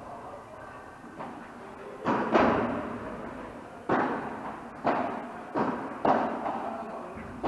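Padel rally: the ball struck back and forth by the rackets and bouncing off the court, about seven sharp knocks spaced roughly half a second to a second and a half apart, each echoing in a large indoor hall.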